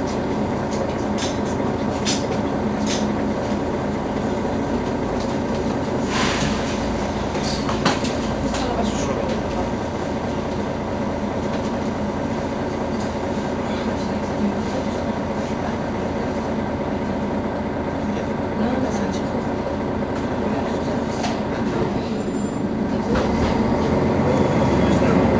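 Mercedes-Benz Citaro diesel city bus idling steadily at a stop, with a steady engine hum. There are a few clicks, a short hiss about six seconds in and a knock soon after, and the engine grows louder near the end.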